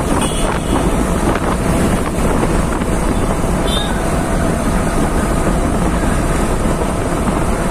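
Wind rushing over the microphone of a Yamaha R15 V3 motorcycle in motion, with the engine running underneath, steady throughout.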